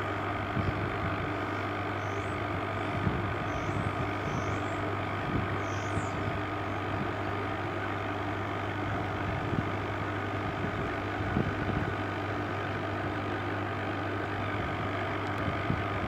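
A DIY hot-tub heat pump using R290 refrigerant runs with a steady compressor and fan hum. Faint irregular gurgles sound over it: the bubbling the owner links to the compressor's suction accumulator filling up with refrigerant.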